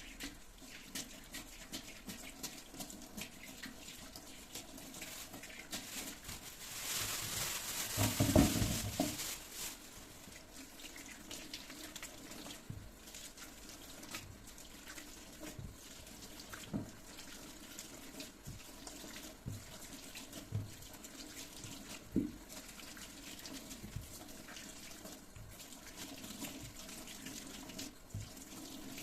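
Kitchen sounds: a tap runs into a sink for about two seconds, a third of the way in, among scattered light knocks and clicks of things being handled.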